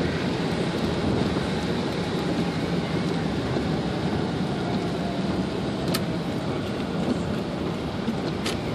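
Road noise inside a moving car on a rain-soaked road: a steady hiss of tyres on wet pavement. Two sharp clicks cut through it, one about six seconds in and one near the end.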